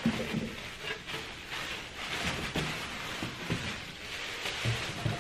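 Plastic bag and bubble wrap crinkling and rustling as a wrapped item is handled, with an occasional soft knock.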